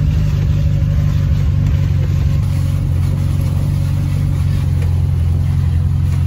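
Vehicle engine running steadily while driving slowly over a grassy field, a low even drone heard from inside the cab.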